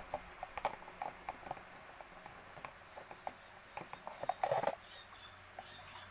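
Light clicks and taps of small plastic parts being handled while an electric fan is taken apart, with a louder scrape about four and a half seconds in. A faint steady high-pitched tone runs underneath.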